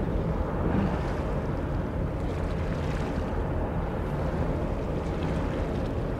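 Steady low rumbling noise of wind on the microphone by open water, mixed with the distant rumble of a large ship under way; no clear engine note stands out.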